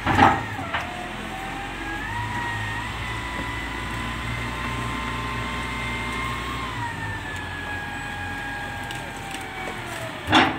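Wheel loader's diesel engine working hard as it pushes a wooden fishing boat down the beach: a steady low rumble with a whine that rises about two seconds in, holds, and drops back around seven seconds. A brief loud sound comes at the very start and another near the end.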